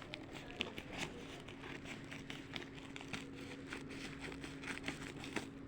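Scissors snipping open a delivery package, a run of small clicks and crinkles of the packaging, over a faint steady hum.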